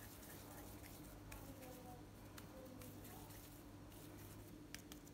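Near silence: a faint steady hum of room tone with a few soft ticks.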